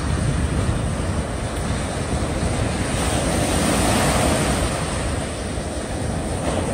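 Small waves breaking and washing up a sandy beach, swelling loudest as a wave breaks about four seconds in.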